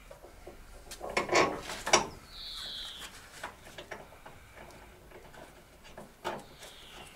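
Clinks, knocks and rubbing of metal parts and tools as an engine is worked into place on its mounts. The loudest knocks come in a cluster about one to two seconds in, and two short high falling squeaks follow, one just after and one near the end.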